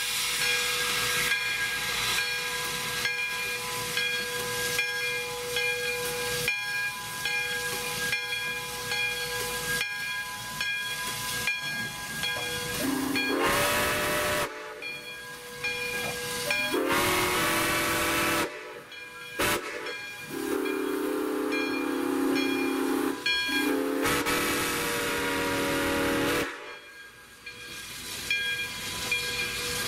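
Steam whistle of a 1919 Baldwin 4-6-2 Pacific steam locomotive, Santa Fe #3415, over a steady hiss of steam. For the first dozen seconds only the hiss is heard, with a faint regular beat. Then the whistle sounds four blasts of several tones together: two short blasts, then two longer ones run almost into each other.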